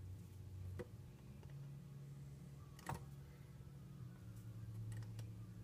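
Faint low electrical hum with a few soft clicks, the loudest about three seconds in, as the voltage control of a Sprague Tel-Ohmike TO-6A capacitor analyzer is turned slowly up during a leakage test.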